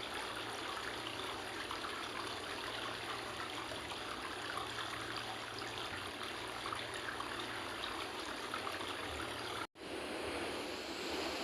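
Steady rush of a fast-flowing mountain river. It cuts out for an instant near the end and picks up again with a slightly different rush.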